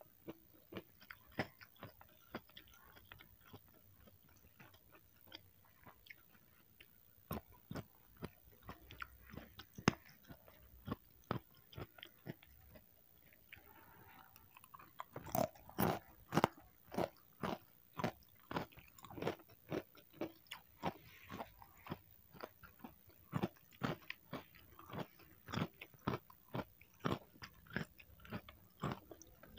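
Close-up chewing of a hand-fed mouthful of rice with sambal goreng pete (stink beans) and raw vegetables: a long run of short, sharp, moist chewing clicks, sparse at first and growing denser and louder about halfway through.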